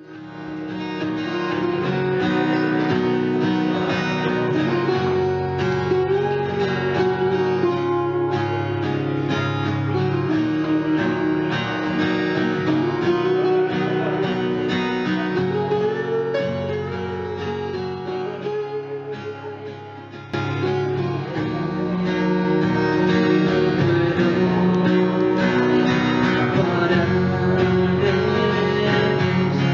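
Acoustic guitars strummed and picked with a man singing a melody over them. About twenty seconds in the music sinks lower, then cuts back in suddenly at full level.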